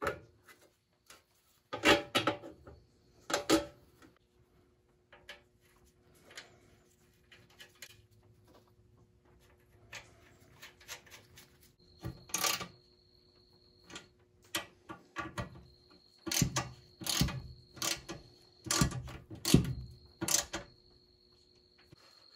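Irregular knocks and clanks of metal parts and tools being handled and fitted onto a bumper. A pair of loud strikes comes about two seconds in, and a dense run of sharp clanks comes in the last third.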